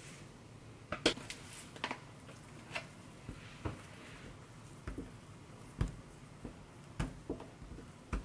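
Hands handling and twisting strips of cardamom bun dough on a countertop: a dozen or so scattered light taps and soft thumps with quiet room tone between them.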